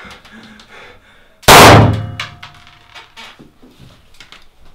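A single very loud shot from an M1911-style blank-firing pistol about a second and a half in, dying away over about half a second.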